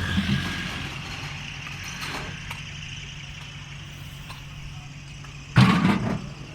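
A motor vehicle engine idling with a steady low hum, with one loud burst of noise lasting about half a second near the end.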